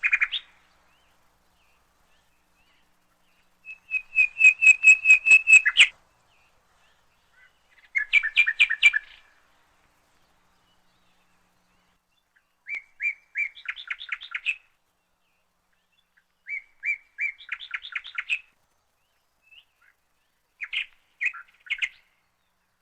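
Bird song: short trilled phrases of rapid chirps, each lasting one to two seconds and coming about every four seconds, with dead silence between them.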